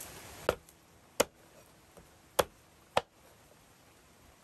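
A cleaver chopping raw chicken on a wooden cutting board: four sharp chops in two pairs.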